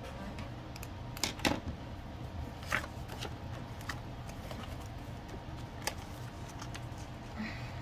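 Handling noise from a paper card and a plastic binder pocket: soft rustling and a few light clicks and taps, over a steady low hum.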